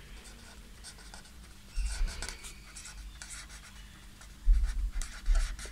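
Felt-tip marker writing words on paper in short scratchy strokes, with low thumps about two seconds in and again near the end.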